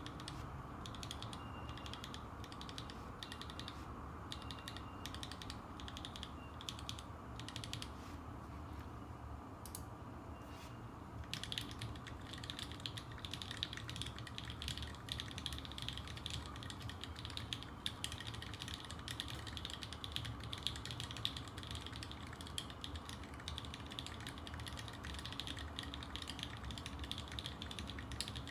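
Custom mechanical keyboard with lubed Gateron Black linear switches, an aluminium plate, a Unikorn case and GMK keycaps, being typed on. For about the first ten seconds there are scattered single keystrokes, then continuous fast typing, over a steady low hum.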